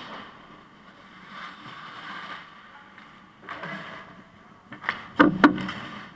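Ice hockey game at close range: skate blades scraping the ice in a few swells, then a quick cluster of sharp knocks near the end, the loudest of them as players, sticks and puck come in tight around the net and boards.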